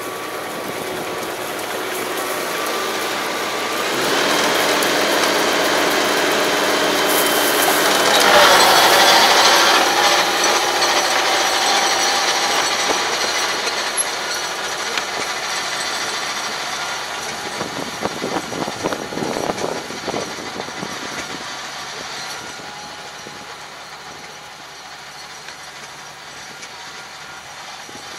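ISEKI tractor's diesel engine running under load as its rear rotary tiller churns rice-field stubble. It passes close by, is loudest about nine seconds in, then fades steadily as it moves away.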